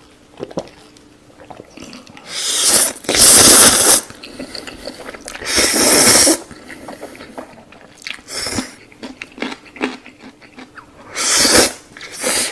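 Instant noodles being slurped close to the microphone: a long slurp about two seconds in, another around six seconds, and one near the end, with quieter chewing and wet mouth clicks in between.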